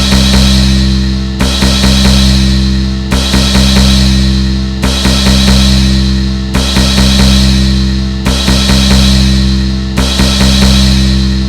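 Looped drum sound effect: a short cluster of drum strikes repeating about every 1.7 seconds, each ringing out and decaying, over a steady low drone.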